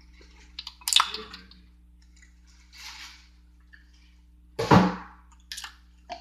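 Handling noises at a kitchen counter: a sharp clack about a second in, a short hiss near three seconds, and a heavy thump near five seconds, the loudest, followed by a few small clicks, over a steady low hum.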